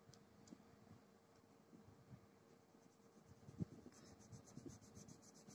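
Faint scratching of a colour being rubbed onto paper in quick back-and-forth strokes, about eight a second, starting about four seconds in; before that only a few faint scrapes.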